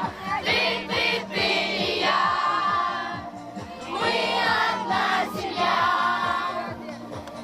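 Group of voices singing together in chorus, with a brief lull about three seconds in, over a steady low hum.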